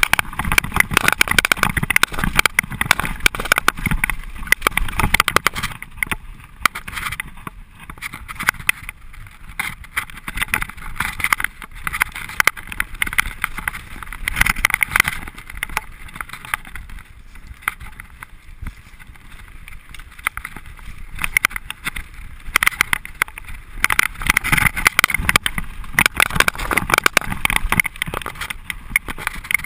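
Mountain bike rattling and clattering down a rough dirt trail: tyres on dirt and stones, with many quick knocks as the bike bounces over the ground. It is louder at the start and again near the end, with a quieter stretch in the middle.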